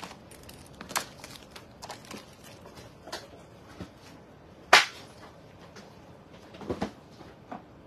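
Scattered sharp clicks and knocks of objects being handled on a shop counter. The loudest is a single sharp knock about halfway through, with a short cluster of knocks near the end.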